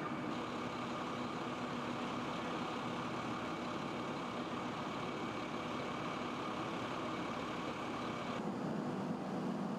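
Fire engine idling, a steady engine hum with a few constant tones. Near the end it turns lower and duller.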